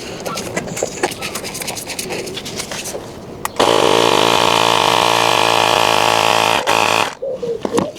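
Clicks and clatter of parts being handled, then a small electric power-tool motor runs steadily for about three and a half seconds and stops abruptly.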